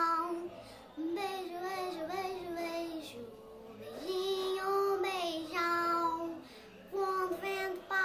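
A young boy singing a slow melody, holding long notes in short phrases with brief pauses between them.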